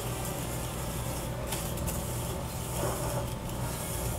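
Wire balloon whisk working margarine into granulated sugar in a glass bowl, the wires scraping and rubbing through the sugar steadily.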